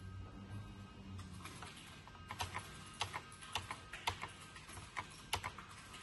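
Computer keyboard keys clicking in an irregular run of about a dozen sharp clicks, starting about two seconds in and stopping about a second before the end.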